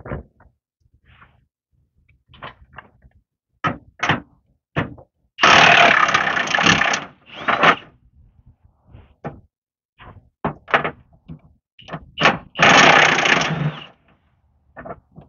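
Impact wrench running in two bursts of about a second and a half each, on the 15/16 bolts along the bottom of a snowplow blade, with scattered clanks and clicks of metal and tools between.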